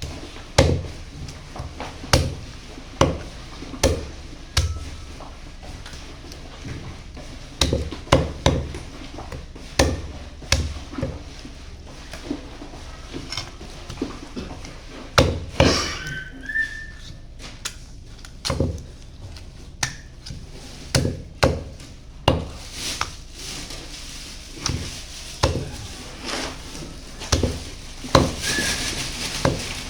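Cleaver chopping through chicken on a chopping board, with irregular heavy chops every second or two. A short whistle-like tone sounds twice, about halfway through and near the end.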